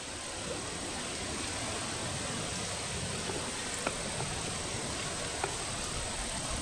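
Steady background hiss with a thin high tone held throughout and a few faint ticks around the middle.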